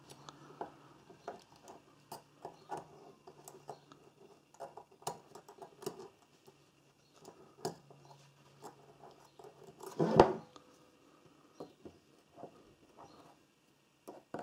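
Small metal parts of a socket ratchet's head being handled and fitted during reassembly: a string of light clicks and taps, with a louder clatter about ten seconds in.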